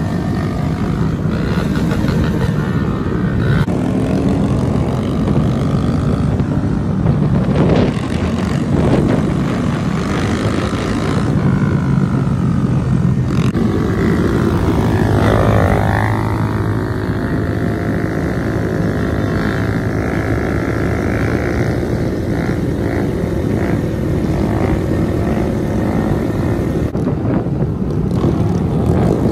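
Several small motorcycle and mini bike engines running together, the exhaust notes rising and falling again and again as the riders rev and back off the throttle.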